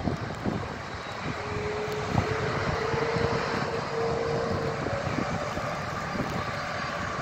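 Jet engines of a taxiing Airbus A330-300 airliner, heard as a steady rushing noise with a whine that holds for a few seconds and then fades. Wind buffets the microphone.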